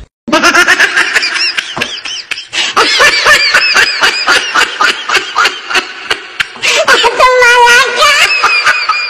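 Loud, high-pitched laughter in rapid repeated bursts, with a wavering, drawn-out high voice about seven seconds in.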